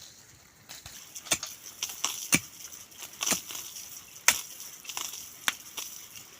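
Sharp chopping strikes of a hand tool, about five of them roughly one a second.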